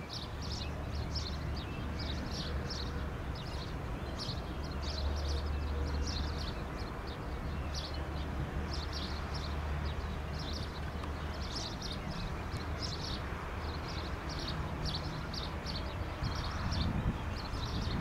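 Low, steady rumble of distant jet engines, the twin turbofans of a Cessna CitationJet CJ2 on landing approach, growing a little louder near the end. Short high chirps repeat a few times a second over it throughout.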